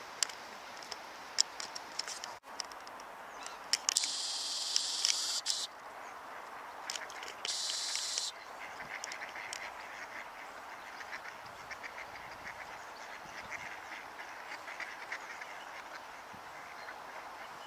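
Mallards quacking on the water, many short calls repeating through the second half. Earlier, a high steady hiss cuts in and out twice.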